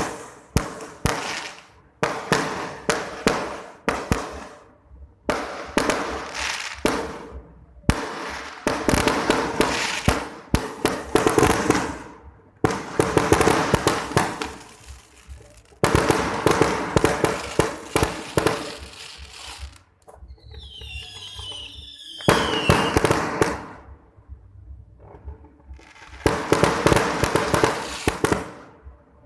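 Fireworks going off in repeated volleys of rapid crackling bangs, each volley lasting a second or few with short pauses between. About two-thirds of the way through, whistles fall in pitch between the volleys.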